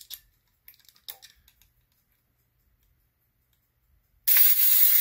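1940s–50s Park-O-Meter clockwork mechanism: a few light clicks, then a loud rapid whirring rattle of the gears for under a second about four seconds in, as an inserted penny sets a few minutes on the timer.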